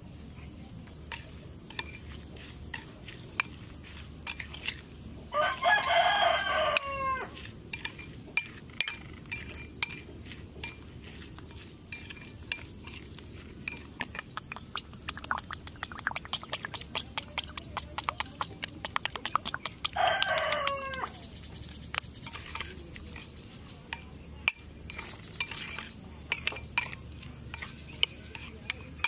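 A rooster crows twice, once about five seconds in and again about twenty seconds in. Underneath, a metal spoon clinks and scrapes against a ceramic bowl as the sauce is mixed, with a fast run of clinks in the middle.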